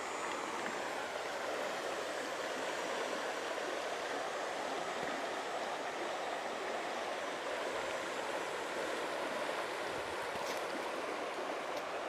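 Shallow river water flowing steadily over a stony bed, an even wash of noise with no pauses.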